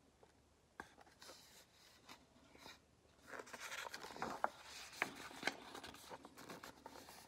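A page of a hardcover picture book being turned by hand: a faint click about a second in, then a few seconds of paper rustling with several sharp clicks as the page is flipped over and the book is settled open.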